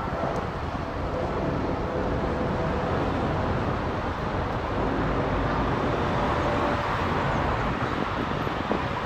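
Boeing 777-300ER's twin GE90-115B turbofans at climb power overhead: a steady jet roar with a faint whine of engine tones through it.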